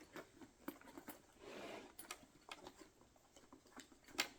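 Faint handling noises as tools are packed into a tool bag: scattered small clicks and taps, a short rustle near the middle, and a sharper click near the end.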